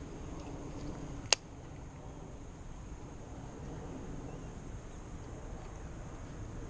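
Steady low outdoor background noise with a single sharp click about a second in.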